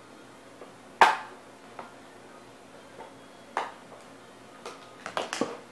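Sharp clicks and knocks from handling toy packaging and doll accessories: the loudest about a second in, a few smaller ones after, and a quick cluster of clicks near the end.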